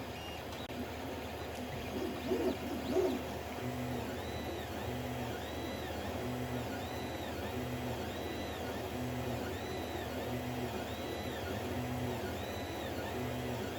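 Creality CR-10 3D printer running a print: its stepper motors whine in a regular back-and-forth cycle, each move a tone that rises and falls about every 1.3 seconds. A few louder, rougher noises come two to three seconds in.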